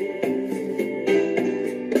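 Music: a song with plucked guitar notes over a steady beat.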